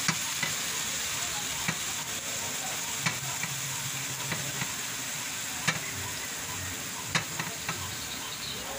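Chopped bottle gourd sizzling in hot oil in a frying pan as it is tipped in from a plate: a steady frying hiss, broken by several sharp clicks.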